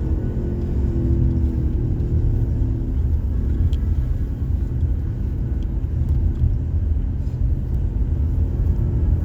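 Car driving along a road: steady low engine and road rumble, the engine note shifting slightly about a second in.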